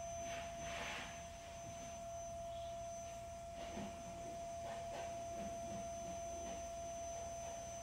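A steady hum held at one high pitch, like a small motor or appliance whine. Faint soft rustles come and go over it, from yarn being worked on a crochet hook by hand.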